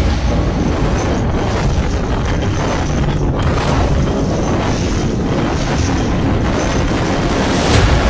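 Storm wind buffeting the microphone: a loud, steady rush of noise, with a brief swell near the end.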